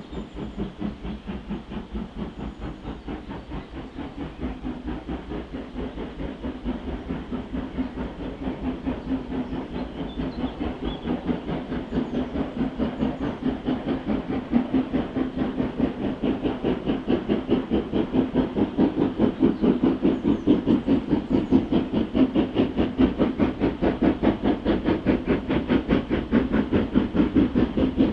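Steam locomotive working hard under steam, its exhaust beating in a quick, even rhythm of chuffs and growing steadily louder as it approaches.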